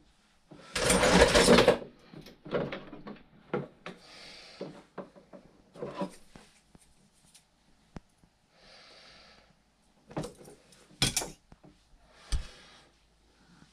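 Workbench handling noises: a loud scraping rustle about a second in, then scattered clicks, rubbing and small knocks as tools and the boat's silicone water hose are handled and trimmed.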